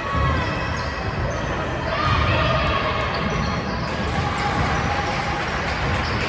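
A basketball being dribbled on a gym floor during a game, with repeated thuds and voices in the background.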